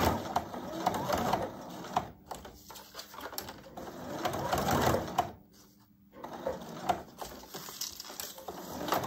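Electric sewing machine stitching a narrow strap of waterproof fabric in short, uneven runs, with a brief stop about five seconds in and a few sharp clicks as the strap is handled.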